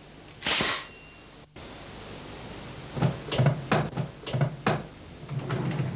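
Desk drawer pulled open with a short sliding scrape about half a second in. Then a string of short knocks over the last few seconds.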